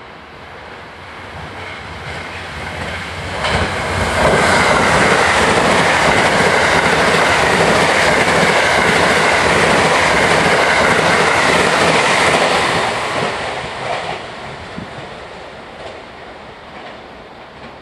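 A limited express Shirasagi electric train passes at speed. Its rail noise builds as it approaches, stays loud and steady for about eight seconds as the cars go by, then fades away.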